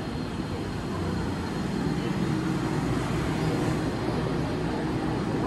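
Yui Rail monorail train pulling into an elevated station and drawing up along the platform, a steady low running rumble that swells slightly as it comes alongside.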